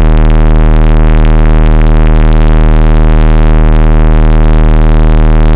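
Car audio subwoofers playing a 39 Hz bass test tone at very high volume: one steady, unchanging low tone, heavily distorted and buzzy with overtones.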